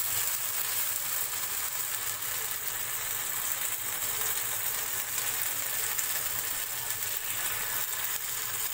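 Steady sizzling of semolina batter in hot oil on a non-stick tawa over a full gas flame, as a ladle spreads the batter.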